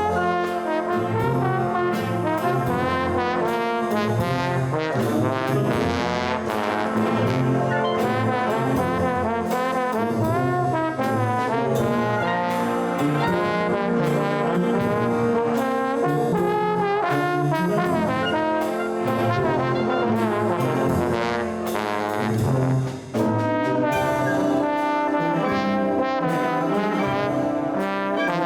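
A band led by trombones and trumpets plays a continuous piece of music, with a brief break in the sound about 23 seconds in.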